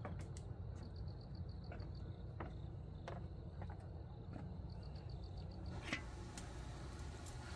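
An insect chirping in short, evenly pulsed trains over a low steady hum, with scattered light clicks and knocks, the sharpest about six seconds in.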